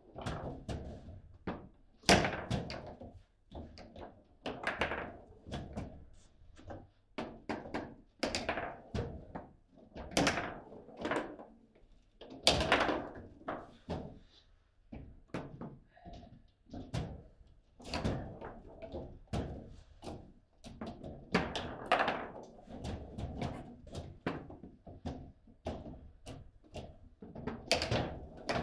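Table football game in play: irregular hard knocks and thuds as the ball is struck by the plastic figures and rebounds off the table walls, a few of them much louder shots.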